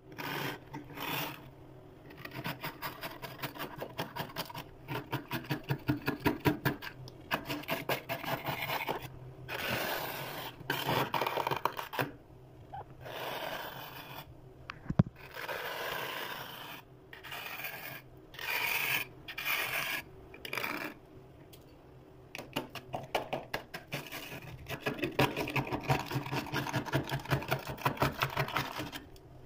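Thick freezer frost being scraped off with a plastic scraper: raspy strokes in quick bouts with short pauses between them. There is one sharp click about halfway through.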